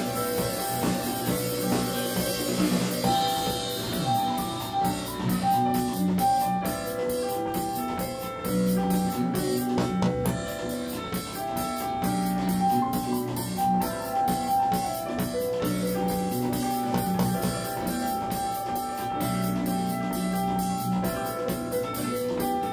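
Live band playing an instrumental passage: keyboard chords and melody over a drum kit, with guitar.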